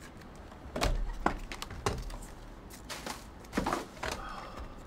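A few sharp clicks and knocks with brief rustling: a trading-card box and its packs being handled and opened on a table.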